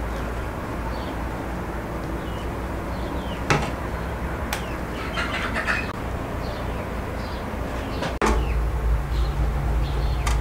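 Two sharp knocks of a knife on a wooden cutting board over a steady low background hum, with faint bird chirps. About eight seconds in the sound switches abruptly to the steady hum of an electric meat grinder's motor running.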